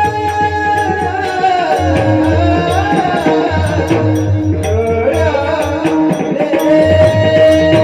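Live Marathi devotional kirtan singing: a voice holds long notes that bend and waver in pitch over a steady drone. A drum and regular small-cymbal strokes keep the beat.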